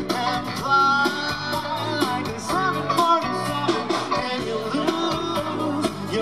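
Live band playing an upbeat rock number: drums, electric guitar and bass with a horn section of saxophone, trumpet and trombone, and a lead singer.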